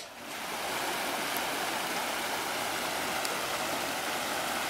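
Small stream tumbling over rocks: a steady rush of water that swells up within the first second and then holds even.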